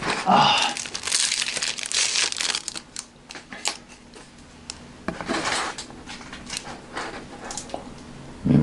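Crinkling and crackling as a takeout bento box and its contents are handled with wooden chopsticks, with a few sharp clicks. The sound is densest in the first couple of seconds, and there is a shorter burst about five seconds in.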